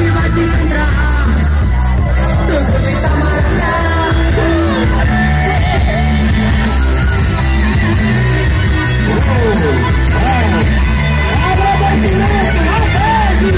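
Loud party music with singing over a heavy, steady bass beat, played through large loudspeaker cabinets.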